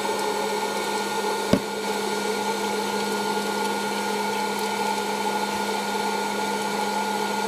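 Hot air popcorn maker running: its fan motor gives a steady hum, with one sharp click about one and a half seconds in.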